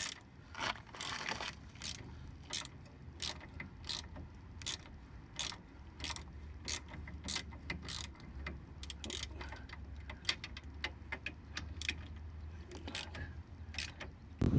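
Ratchet wrench clicking in repeated strokes, a sharp click about every two-thirds of a second, as bolts are turned to draw a new front wheel hub bearing into place instead of hammering it in.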